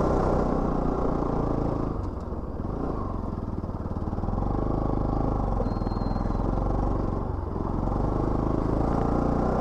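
Motorcycle engine pulling the bike up a steep climb, running steadily, with the level dipping briefly twice as the throttle eases.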